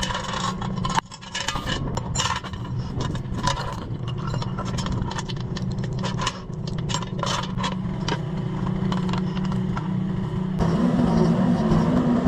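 Mini excavator engine running steadily while scraping and clattering strokes, like a bucket working against ground, wood or metal, come thick and fast. Near the end the scraping stops and the engine note rises and gets louder.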